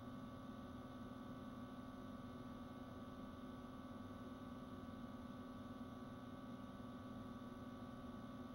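Low, steady electrical hum with faint hiss, unchanging throughout, with no other sound.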